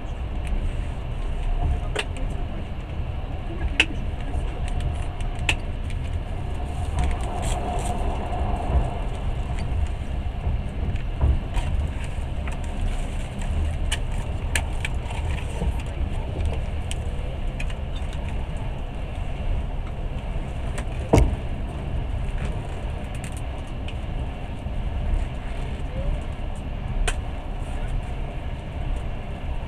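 Passenger train running at speed, heard from inside the carriage: a steady low rumble with scattered sharp clicks and knocks, one louder knock about two-thirds of the way through.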